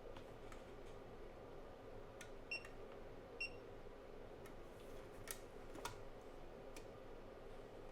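Two short, high electronic beeps from a digital clamp meter, about a second apart, followed by a few sharp clicks as the meter is handled, over a faint steady hum.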